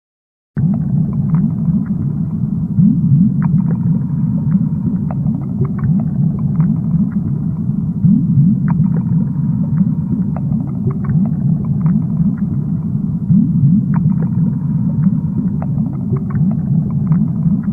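Underwater ambience: a loud, muffled low rumble packed with quick rising blips and scattered faint clicks, cutting in suddenly about half a second in.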